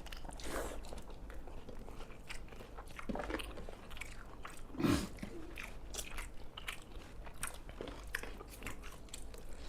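Close-up eating sounds: chewing and mouth clicks from rice and spicy pepper chicken being eaten, many small sharp smacks scattered throughout. A brief low vocal sound with a falling pitch about five seconds in.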